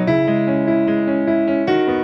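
Background music: a keyboard melody with notes changing every quarter to half second.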